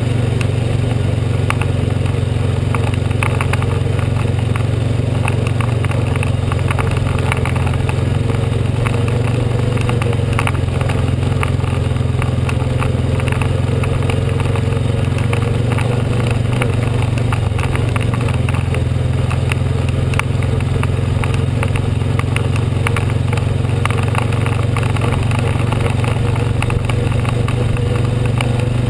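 ATV engine running steadily as the four-wheeler rolls along a dirt trail, with many small rattles and clicks throughout.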